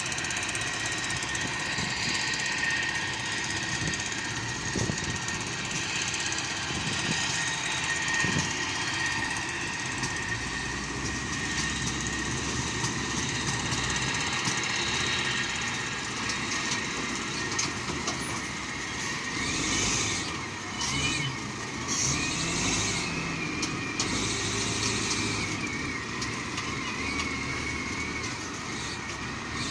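Engine of a heavy construction machine, such as a backhoe or excavator, running steadily as it works, with a thin steady high whine over the engine noise.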